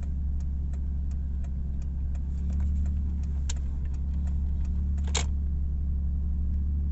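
Toyota Crown's turn-signal flasher ticking at about three clicks a second over the engine idling steadily, with a louder click about five seconds in.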